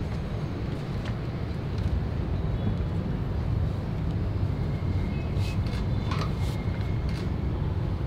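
Steady low rumble of distant city traffic, with a few faint clicks in the second half.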